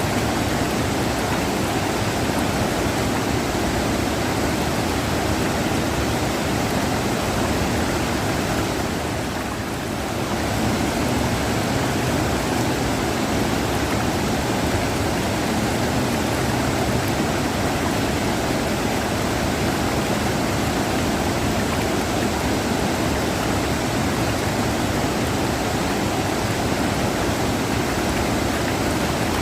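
River water rushing in a steady, dense roar of noise, dipping slightly for a moment about nine seconds in.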